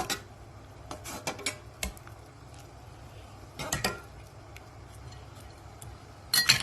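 Metal kitchen utensils clinking and knocking against a pot and bowl in a few short clattering bursts, the loudest near the end, as boiled broccoli is handled for cooling in ice water.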